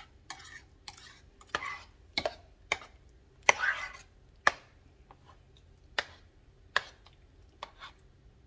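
Metal spoon stirring a thick cheese sauce in a slow-cooker crock, knocking and clinking against the sides in irregular strokes, with a longer scrape about three and a half seconds in.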